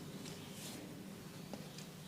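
Hands rubbing oiled scalp and skin in a head massage: a soft swish over a steady low hum, with a faint click about one and a half seconds in.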